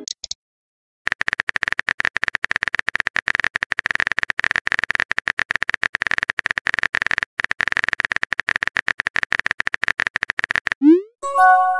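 Phone keyboard typing sound effect: rapid key clicks with a short break partway through, as a text message is typed. Near the end, a short rising blip and a chime of a few tones: the message-sent sound.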